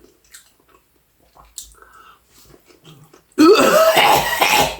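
A man's strained, wheezing vocal outburst, about a second and a half long and starting suddenly near the end, the kind of gasp someone gives at the bite of hot mustard. Before it there are only faint small clicks.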